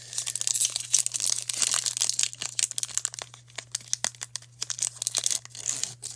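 Foil wrapper of a Pokémon card booster pack being torn open and crinkled in the hands: a dense, continuous crackle.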